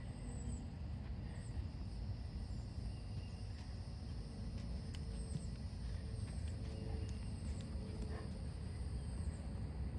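Outdoor ambience: a steady low rumble with faint, short high chirps recurring every second or so.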